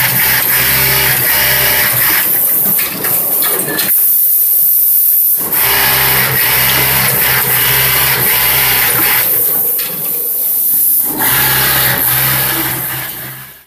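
Juki AP-876 automatic pocket setter running at high speed in sewing cycles: a steady machine hum that stops briefly about four seconds in and again about ten seconds in, then starts again each time.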